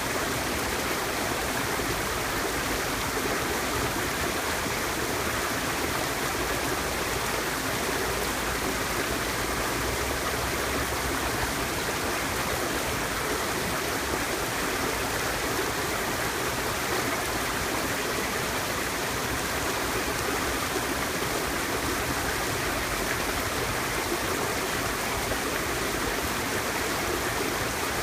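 Mountain stream rushing steadily over rocks, a constant even wash of running water.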